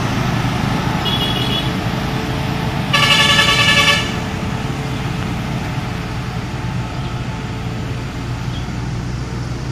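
Heavy crude-palm-oil tanker truck's engine labouring steadily up a steep grade. A vehicle horn gives a short toot about a second in, then a longer, louder blast around three seconds in.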